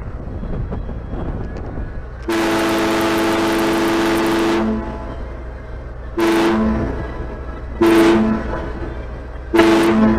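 The cruise boat's horn sounding one long blast followed by three short blasts, the signal for leaving the dock and backing out, over a steady low engine rumble.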